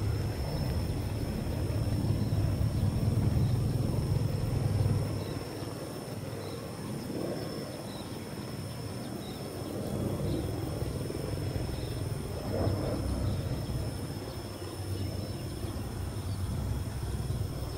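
Outdoor field ambience: a low rumble, stronger for the first five seconds and weaker after, under a steady high-pitched whine and faint short chirps about once a second.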